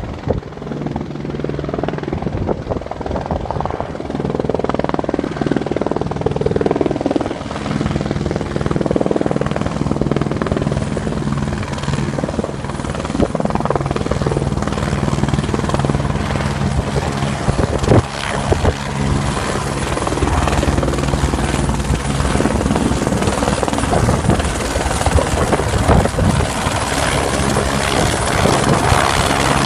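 Eurocopter AS350BB Squirrel helicopter in flight: its main rotor beat and turbine make a steady drone that grows gradually louder.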